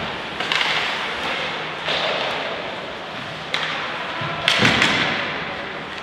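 Ice hockey play in an arena: about four sharp thuds and knocks of puck, sticks and players against the boards, each trailing off in a hiss of skates on ice and echo, the loudest near the end.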